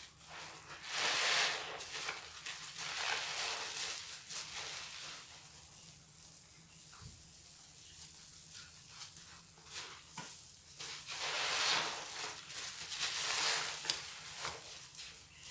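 Hands squeezing soap-soaked sponges: wet squelching and the crackle of dense suds. It comes in surges, loudest about a second in and again around twelve to thirteen seconds in.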